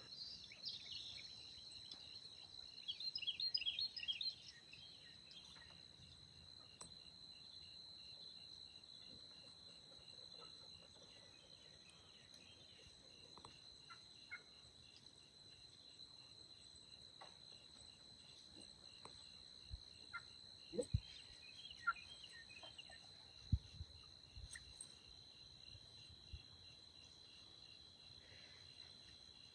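Faint, steady trilling of crickets and other insects, with wild turkeys calling in a short cluster about three seconds in and again later. A few sharp knocks, the loudest sounds, come about two-thirds of the way through.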